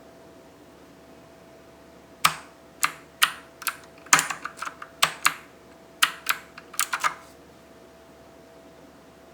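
Abko Hacker K600 Hades mechanical keyboard with clicky blue switches being typed on: a run of about fifteen sharp keystroke clicks starting about two seconds in and stopping about five seconds later.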